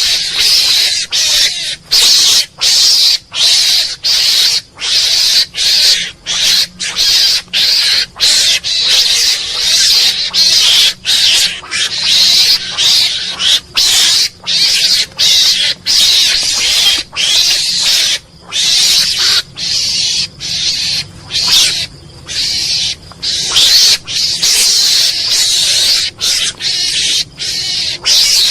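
Mongoose calling: a long run of hiss-like noisy bursts, each under a second, separated by short breaks.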